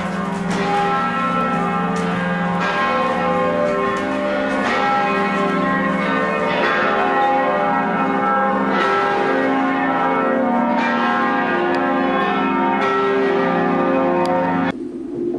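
Music made of bell-like chimes: clusters of bell tones struck about every two seconds, each ringing on under the next. It cuts off sharply near the end as different music comes in.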